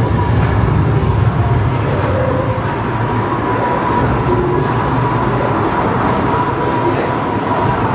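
Dark-ride car running along its rail track: a steady, noisy rumble with a thin, steady high tone over it.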